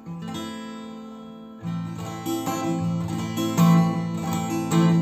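Acoustic guitar played solo: a chord rings and fades, then about a second and a half in, rhythmic strummed chords start and grow louder.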